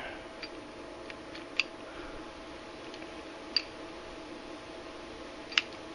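Three sharp metallic clicks about two seconds apart, with a few fainter ticks, from the steel parts of a 1911 pistol being handled by feel as it is field-stripped. A faint steady hum runs underneath.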